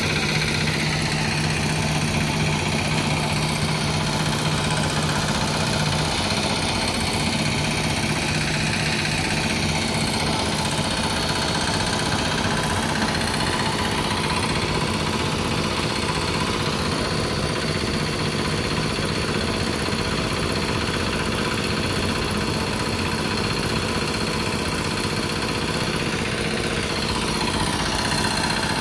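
Small engine of a concrete poker vibrator running steadily at a constant speed while the vibrator works fresh concrete in a roof slab.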